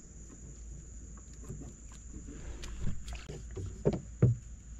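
Knocks and clunks of fishing gear being handled in a small boat, several short ones building to two louder knocks close together about four seconds in, over a steady faint high-pitched hiss.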